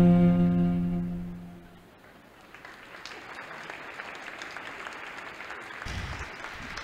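The last held note of the skating music fades out over the first two seconds, then applause from a small crowd follows.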